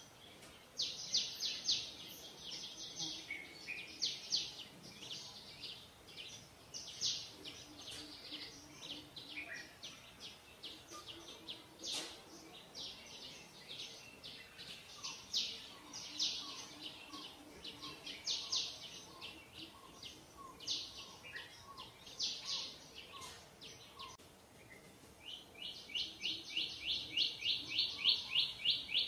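Small birds chirping in quick repeated runs of high notes, with a faster steady trill setting in near the end and a fainter series of lower notes in between.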